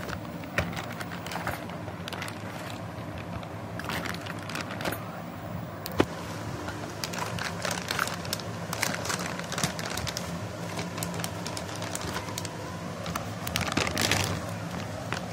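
Plastic bag and cardboard packaging of a graphics card crinkling and rustling as the card is unwrapped and lifted from its box, with scattered crackles and one sharp click about six seconds in. A steady low hum runs underneath.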